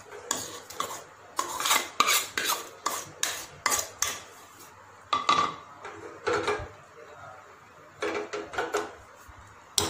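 Steel spoon scraping and clinking against a bowl and a steel pressure-cooker pot as soaked sago pearls are scraped into hot water and stirred. The strokes come thick and fast in the first few seconds, then more sparsely.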